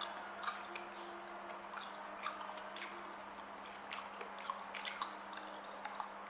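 A person chewing a mouthful of octopus up close, with irregular wet smacking and squishing mouth sounds.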